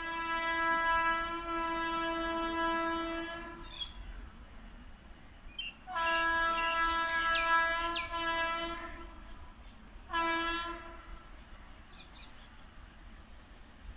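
Electric locomotive's horn, one steady pitched note sounding three times from an approaching train: a long blast, a second blast of about three seconds, then a short toot.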